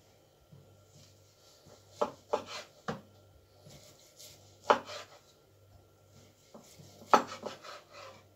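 Knife slicing through a roll of cooked kokoreç and knocking on the cutting board beneath: a few irregular sharp chops in three bursts, about two seconds, five seconds and seven seconds in.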